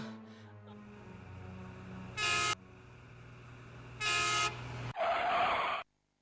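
A vehicle horn honks twice, about two seconds apart, over a low steady hum. Near the end a harsh, noisy burst lasting under a second cuts off abruptly into silence.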